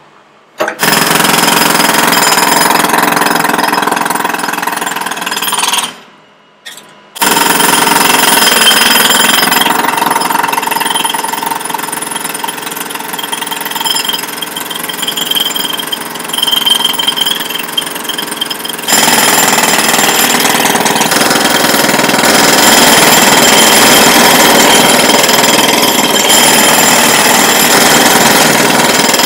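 Pneumatic jackhammer breaking up alley pavement, running loud and continuous, with a brief stop about six seconds in before it starts again.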